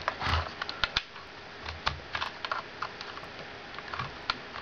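Irregular small clicks and scrapes of a metal key pushing and levering a USB connector into a tight USB port inside a Nao robot's plastic head, with a quick cluster of clicks at the start and then scattered single clicks.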